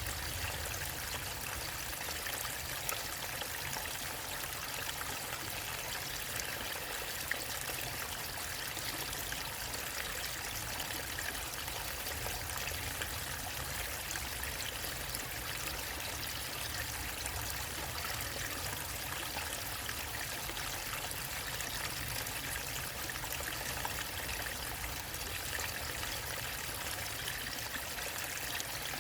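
Waterfall and river water running and splashing: a steady, even rush.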